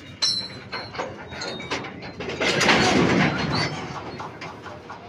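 Railway tank wagons rolling slowly during shunting: sharp metallic knocks with brief high squeals near the start, then a louder noisy rush of wheel and running-gear noise for about a second in the middle, fading away.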